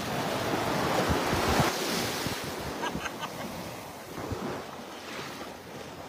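Small waves breaking and washing up over the shallows at the shoreline: the wash swells over the first two seconds, then eases. Wind buffets the microphone.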